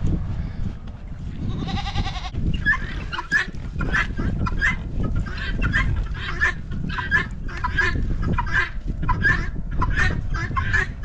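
Guinea fowl calling over and over, short calls at about three a second, over a low rumble. A goat bleats once about two seconds in.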